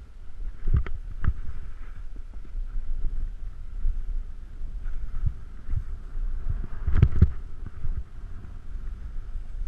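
Wind rumbling on the microphone of a camera carried downhill over snow, with a faint hiss of sliding on snow. Sharp knocks come twice about a second in and again in a loud cluster around seven seconds, as the ride goes over bumps.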